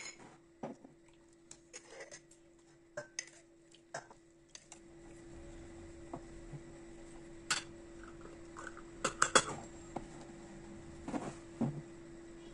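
Glass jam jars with metal twist-off lids being handled on a wooden table: scattered clinks and knocks as jars are set down and lids are put on and tightened, the loudest knocks about nine seconds in. A steady low hum runs underneath.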